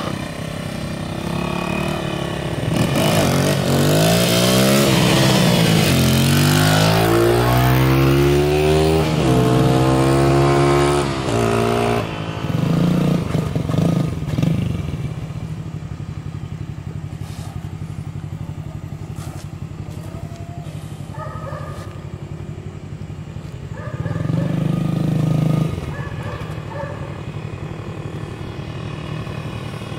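Small dirt bike engine revving and accelerating for several seconds, its pitch climbing and dropping in steps, then settling to a steady idle with one short rev near the end.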